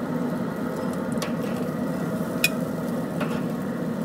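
Fish fillets and asparagus sizzling steadily on a grill grate, with a few sharp clicks of metal tongs against the grate as the asparagus is picked up. The loudest click comes about two and a half seconds in.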